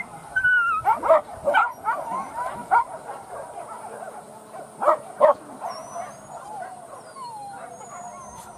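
A pack of leashed boar-hunting dogs barking and yelping, with whining and whimpering between the barks. Sharp barks come in the first three seconds and twice more about five seconds in, then the whining carries on quieter.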